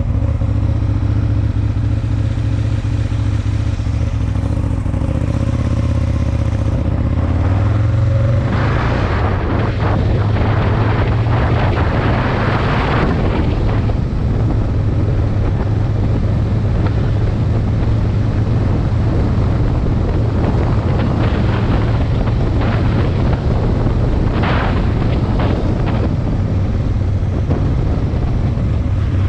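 Aprilia Tuono 1000's V-twin engine running at a steady pitch. About eight seconds in, its note rises slightly and a loud rush of wind noise on the microphone covers it as the bike gathers speed.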